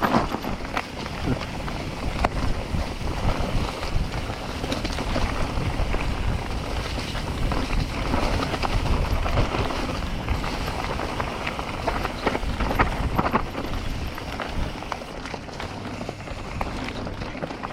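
Mountain bike riding over a dirt trail: wind rushing over the microphone, with a scatter of clicks and rattles from the bike on rough ground.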